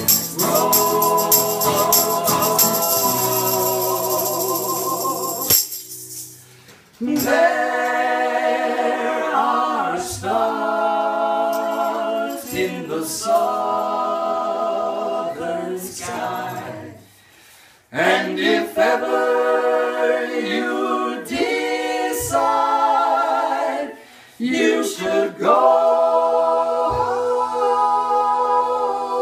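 Three men singing together in close harmony into microphones, long held chords broken by a few short pauses. A shaker rattles over the singing for the first five seconds or so, then stops.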